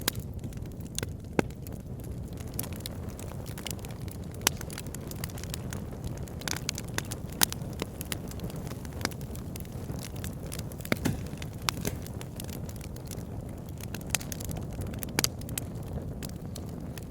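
Fire burning in a fireplace: a steady low rumble with irregular sharp crackles and pops, several of them louder than the rest.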